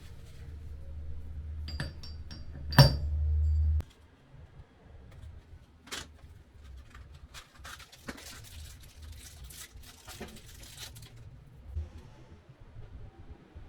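Tools and metal parts being handled, giving scattered metallic clinks and taps; the loudest is one sharp clink about three seconds in. A low hum underneath cuts off suddenly about a second later.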